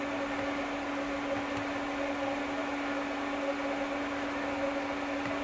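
Steady hum with one constant low tone over a fan-like hiss from a powered-up Fadal CNC machining center and its control, idling while the program is scrolled.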